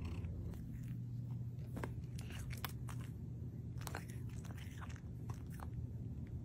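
Domestic cat right at the microphone, purring low and steadily, with scattered soft clicks and smacks of its mouth.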